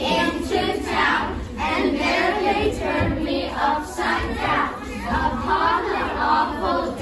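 A class of children's voices reciting verse together in unison: group choral reading.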